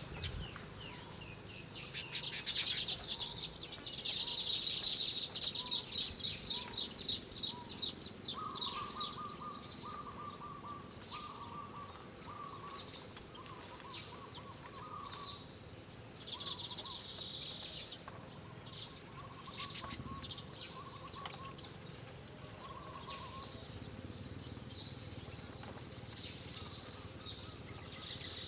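Small birds chirping. A fast run of high twittering comes a couple of seconds in and lasts several seconds, with shorter chirp bursts later. A quieter, lower note repeats through the middle.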